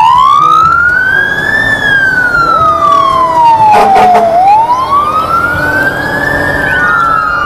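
Fire engine siren wailing: a pitch that rises slowly, falls, and rises and falls again, starting and stopping abruptly.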